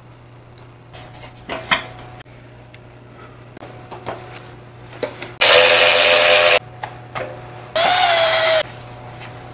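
Cordless drill-driver running in two short bursts, driving screws into a motorcycle's plastic tank shroud: one of about a second, then a shorter one whose pitch dips and recovers as the screw seats. Before them, light clicks and knocks of plastic body panels being fitted.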